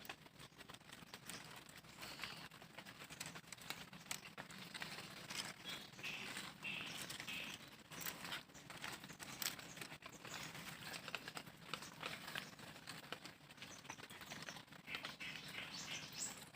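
Faint outdoor quiet with scattered small ticks and rustles, and a couple of short high calls, likely birds, about six to seven seconds in.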